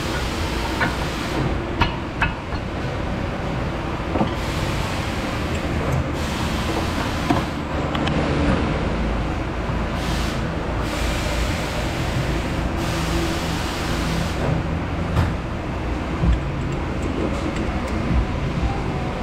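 A loud, steady machine noise runs through the shop the whole time, with a few light metallic clicks and taps from hand tools as a brake caliper and its bolts are fitted.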